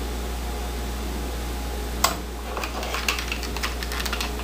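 Steady background hiss, then a sharp knock about halfway through followed by a run of light, irregular clicks and taps of things being handled on the table.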